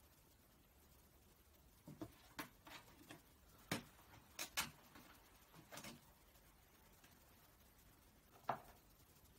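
Faint scattered taps and scuffs as a cat pokes at a cardboard box: a cluster of them between about two and six seconds in, and one more near the end, against near silence.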